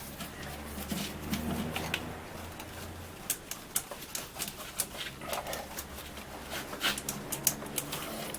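Light clicks and ticks of hoses and fittings being worked onto a replacement secondary-air diverter valve, with a low hum during the first few seconds.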